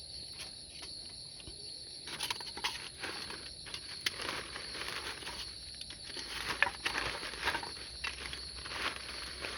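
Insects chirring steadily in two high, unbroken bands, with irregular clicks and rustles of things being handled starting about two seconds in.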